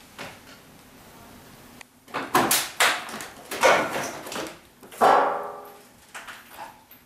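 Loud knocks and clatters of objects being handled among junk. The loudest comes about five seconds in and rings briefly.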